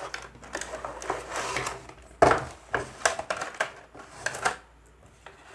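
Cardboard packaging box being opened and a plastic packaging tray slid out and handled: irregular rustles, scrapes and light knocks, the sharpest about two seconds in, dying down near the end.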